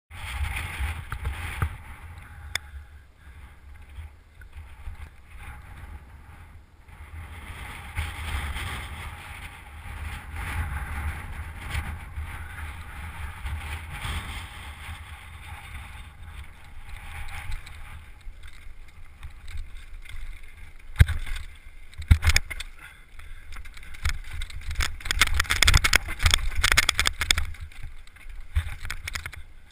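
Mountain bike riding on a rough trail, heard through a GoPro action camera's microphone: a steady wind rumble on the mic with tyre and frame noise. There are sharp knocks about two-thirds through, and a loud stretch of clattering near the end.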